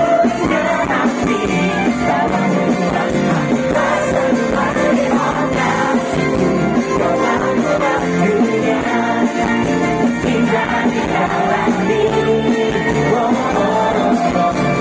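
Live pop band music with singing: a full band with guitars plays on steadily while vocals come and go over it.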